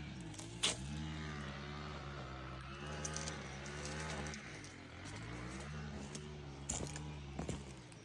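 An engine running, its pitch rising and falling slightly, growing fainter about halfway through. There is a sharp click a little over half a second in.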